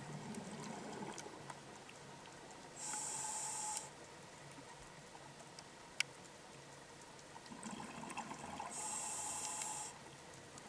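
Scuba diver breathing through a regulator underwater: burbling exhaled bubbles, then a hiss of air through the regulator lasting about a second, twice over. A single sharp click comes about six seconds in.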